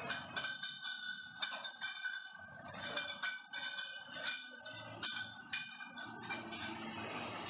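Glass wine bottles clinking against one another and the guide rails as they ride along a conveyor: a dozen or so sharp, ringing clinks over about six seconds, over a faint low machine hum.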